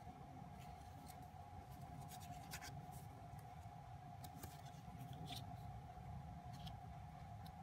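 Faint light clicks and rubs of a stack of photocards being slid and shuffled past each other by hand, over a steady low hum.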